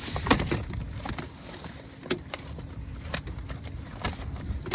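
A few sharp clicks and knocks from hand work inside a car door: tools and door parts being handled. There is a quick cluster at the start, then single knocks about two and four seconds in.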